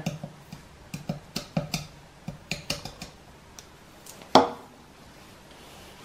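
Small clicks and taps of a plastic blender cup being tapped and shaken to empty coffee grounds, then one sharper knock about four seconds in as the cup or the grinder is handled on the countertop.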